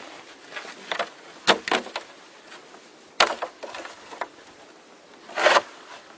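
Wooden sticks being handled, knocking together several times, with a longer crunching snap about five and a half seconds in.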